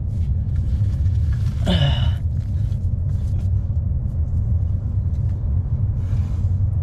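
Wind buffeting the microphone: a steady, loud low rumble. A short sound sliding down in pitch comes about two seconds in.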